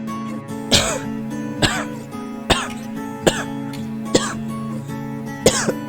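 A person coughing in short single bursts, about six coughs roughly a second apart, over steady background music.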